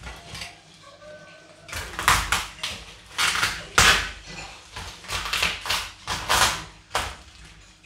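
Packing tape and cardboard on a parcel being cut and torn open by hand: a quick run of short, sharp ripping and scraping noises, starting about a second and a half in.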